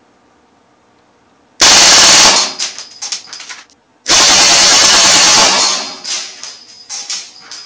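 Crosman AK1 CO2 BB rifle firing on full auto, its blowback bolt cycling fast: a short burst about a second and a half in, then a longer burst of about a second and a half a few seconds in, emptying its twelve-round load. Each burst trails off into scattered sharp clicks.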